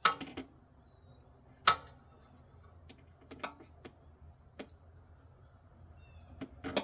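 Metal hinge rod clinking and knocking against the steel bagger mounting brackets as it is pushed through them by hand. Two sharp knocks, one near the start and one a little under two seconds in, then scattered lighter clicks.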